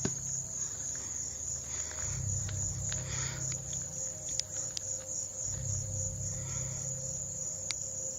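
Crickets chirping in a steady, unbroken high trill, with a low hum underneath that swells and fades every couple of seconds.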